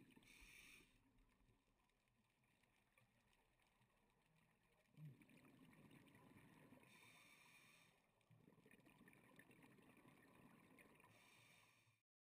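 Very faint, muffled underwater breathing of a scuba diver: short hisses of the regulator on the inhale, near the start and again about seven seconds in, and the low rush of exhaled bubbles from about five seconds in and again after eight.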